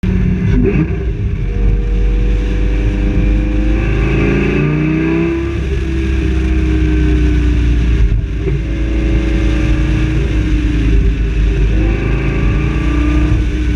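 Car engine and exhaust pulling under acceleration through the gears over a steady low drone. The pitch climbs, drops at shifts about five and eight seconds in, then climbs again near the end.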